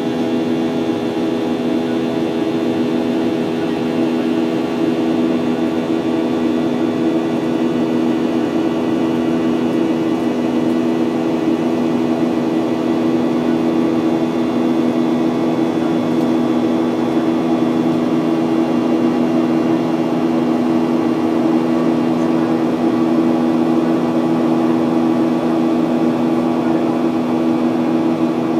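Cabin noise of a Boeing 737-800 in the climb after takeoff, heard from a window seat beside the wing: its CFM56-7B turbofan and the airflow make a loud, steady drone, with a low hum of a few held tones over a rushing noise.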